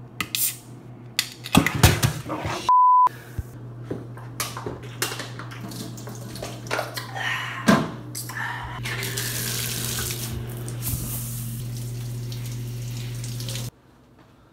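Clicks and knocks of a soda can being handled and a short electronic beep, then water running from a tap with a steady hum under it, stronger in its last few seconds and cutting off suddenly near the end.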